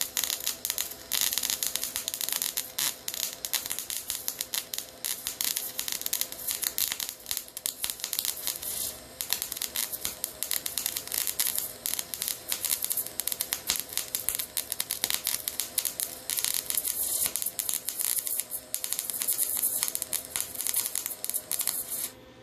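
Wire-feed welder arc-welding a steel exhaust hanger bracket: a continuous dense crackle that stops suddenly near the end as the bead is finished.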